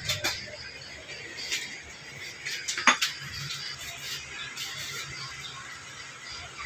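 Scattered light clicks and knocks, with one sharper knock about three seconds in, over a faint steady hum: a black-iron scooter crash guard being handled and freed from its plastic wrapping.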